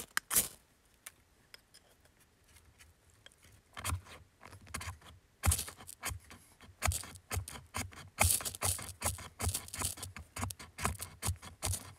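Ferro rod struck with the spine of a knife: short, sharp metal-on-metal scrapes throwing sparks onto wood shavings to light a fire. A few strokes come at the very start, then a lull of several seconds, then a steady run of quick strokes, about two a second, from about four seconds in.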